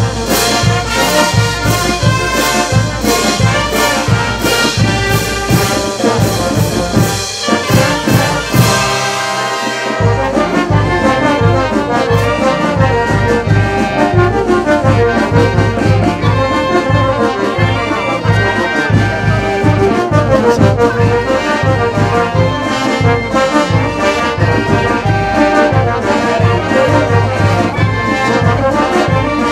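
A brass band of trumpets and trombones playing music with a steady beat. About a third of the way in, the music breaks briefly and then carries on with a changed sound.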